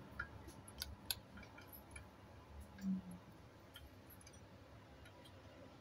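Faint room tone with a few soft clicks in the first second and a half and a short low hum about three seconds in.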